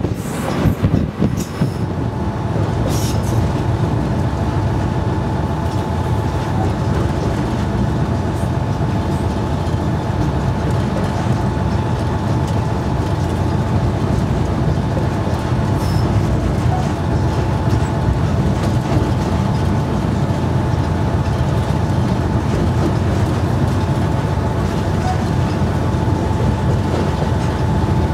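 Diesel locomotive 401Da-131 running steadily under way on the rails, with a steady low rumble and a thin steady whine over it, heard from its cab. A few sharp clicks come in the first few seconds.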